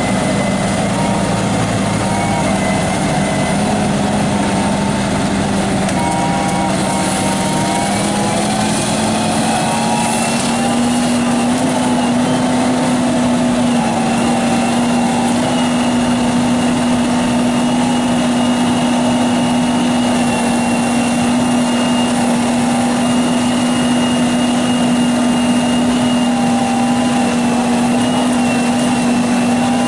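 Engine running steadily, its pitch rising slightly about ten seconds in and then holding.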